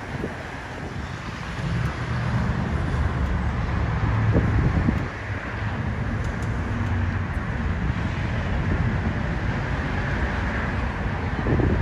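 Steady highway traffic noise, with the low hum of a vehicle engine running close by.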